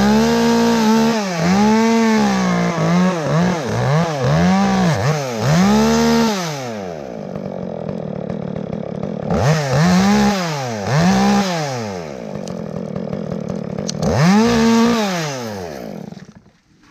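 Chainsaw engine revving hard in repeated surges, the pitch climbing and falling about once a second, in three bursts with a lower, steadier running between them. The sound drops away sharply near the end.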